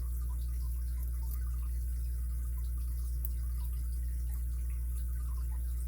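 Faint, irregular small ticks of a lock pick and tension wrench working the pin stack of an ABUS 83CS80 padlock, over a steady low hum.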